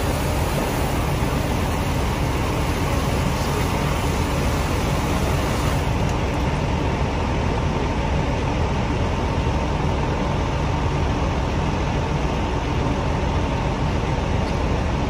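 Steady low rumble of a fire engine's motor running, with a faint steady whine above it.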